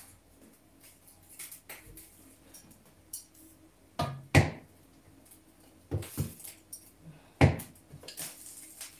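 Cookware being handled on a cooktop: a pot lid and pot knocking and clattering, about five sharp knocks with quieter ticks between, the loudest about four and a half seconds in.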